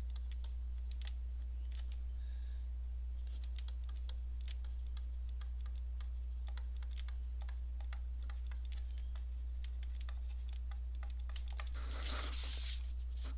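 Stylus tapping and clicking against a tablet screen while handwriting: scattered, irregular light clicks over a steady low hum, with a short rustle near the end.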